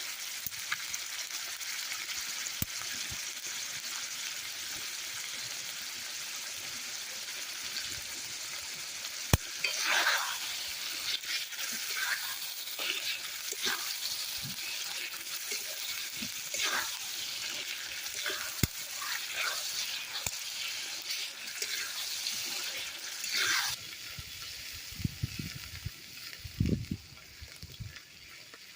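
Food frying and sizzling in hot oil in a pan, with short scrapes of a spatula stirring it. The sizzle falls off suddenly a few seconds before the end.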